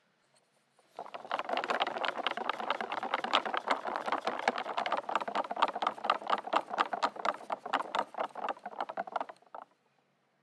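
Balloon whisk with pink silicone-coated wires beating egg-white meringue by hand in a glass bowl: fast, even whisking strokes that start about a second in and stop abruptly near the end.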